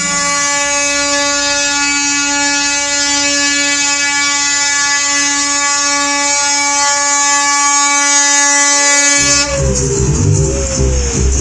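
The air horn of an illuminated Coca-Cola Christmas caravan truck is held in one steady multi-tone blast for about nine seconds, then stops suddenly. Christmas music with jingle bells follows.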